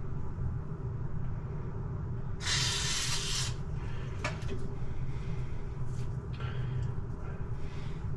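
Washing-machine parts being handled and fitted, with a few light clicks and knocks and a hissing noise lasting about a second, over a steady low hum.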